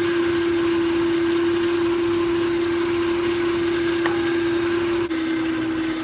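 Toyota Camry idling with the air conditioning running: a steady engine-bay hum and whirr. There is a faint click about four seconds in, and about five seconds in the sound dips briefly and the hum settles a little lower in pitch.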